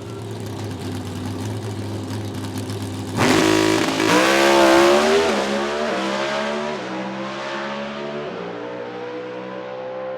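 Pro Stock drag racing V8 running at the starting line, then launching with a sudden loud burst about three seconds in. The engine note climbs through each gear and drops back at three shifts as the car pulls away down the track and fades.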